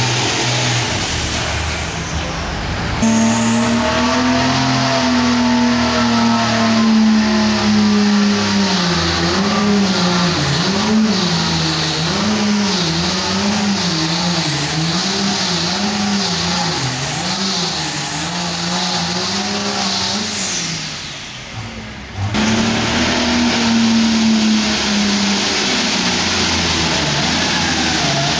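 Turbocharged diesel pulling tractors at full throttle against a weight-transfer sled, a high turbo whistle over the engine. Through the middle of the first pass the revs surge up and down about once a second. It dies away near the end, then another tractor opens up with its turbo whistle rising.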